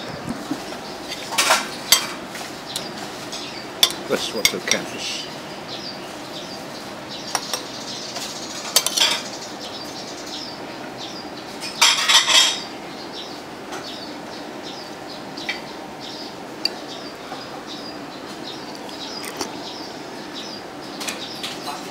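Cutlery clinking against bowls and plates during a meal, in scattered sharp clinks with a few louder clusters of several strikes, over steady background noise.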